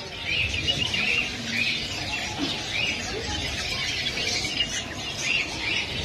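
Caged red-vented bulbuls calling: short, repeated chirping notes, one after another, over a low steady background noise.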